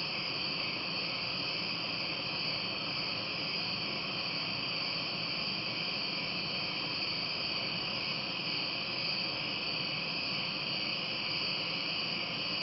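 Steady chorus of night-singing insects, a dense high-pitched trilling that does not let up.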